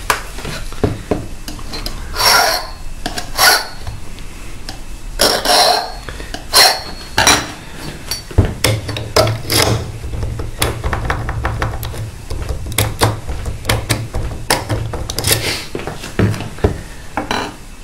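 Irregular metal scraping strokes and sharp clinks: a key blank being filed down at its impression marks and handled against the lock cylinder and tools.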